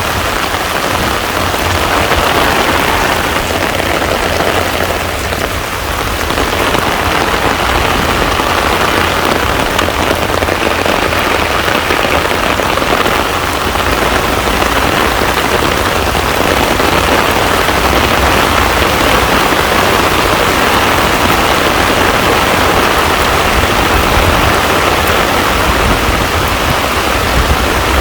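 Heavy rain falling steadily on a pond's surface, a dense, even patter.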